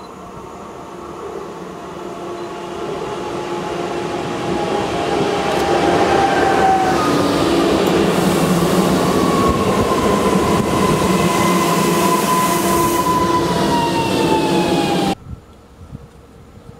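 36WEh electric multiple unit passing close by: its sound builds as it approaches, then the wheels and running gear run loud, with several whines slowly falling in pitch. The sound cuts off suddenly near the end.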